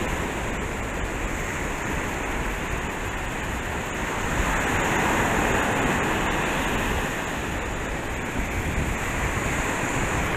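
Steady Gulf surf washing on the beach, mixed with wind on the microphone; the wash grows a little louder about four seconds in and eases off again a few seconds later.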